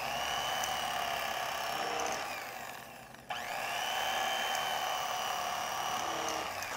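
Mr. Twister electric fillet knife running as it slices through a smoked brisket: a steady motor whine with blade buzz. It winds down about two seconds in, starts again a little after three seconds with a rising whine, and winds down again near the end.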